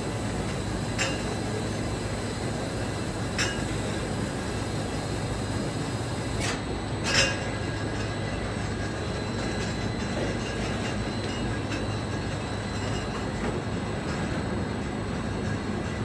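Whiskey bottling line running: the conveyor and labelling machine make a steady mechanical noise, with a few sharp clinks of glass bottles, the loudest about seven seconds in.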